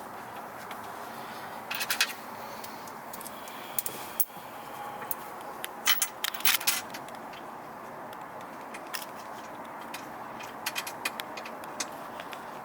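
Scattered metallic clinks and clicks of bolts and washers being handled while a van seat's swivel base is bolted down, with a small cluster of sharp clinks about two seconds in and the loudest run a little past halfway.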